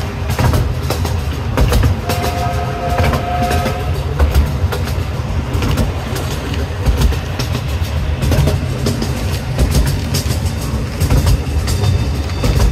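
A zoo train's passenger car rolling along the track: a steady rumble, with the wheels clicking over the rail joints. A brief thin tone sounds about two seconds in.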